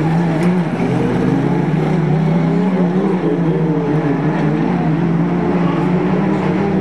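Engines of autocross race trucks running hard on a dirt track: a steady low drone, with engine notes rising and falling as the trucks accelerate and lift off through the corners.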